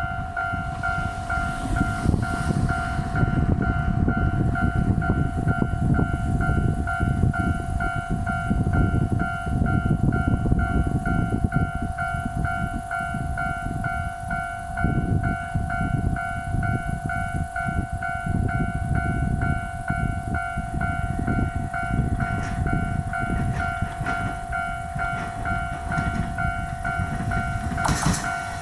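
Japanese railway level crossing's electronic warning bell ringing over and over in a fast, even two-tone rhythm, over a low rumbling noise. Near the end a louder rushing burst comes as a train reaches the crossing.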